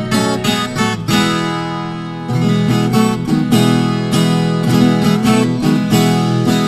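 Viola caipira, the Brazilian ten-string guitar, playing a traditional hymn tune, a plucked melody over strummed chords. About a second in a chord is left to ring and fade, then the playing comes back fuller a little after two seconds in.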